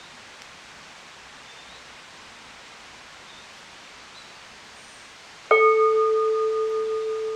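A steady low hiss, then, about two seconds before the end, a single sharp strike that rings out with one clear bell-like tone and a few fainter higher overtones, fading slowly with a slight wavering.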